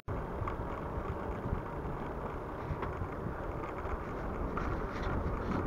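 Steady low wind noise buffeting an uncovered camera microphone while riding a bicycle.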